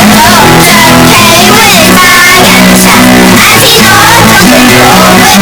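A children's song sung by cartoon voices over guitar accompaniment, boosted to the point of clipping so that it sounds extremely loud and harshly distorted.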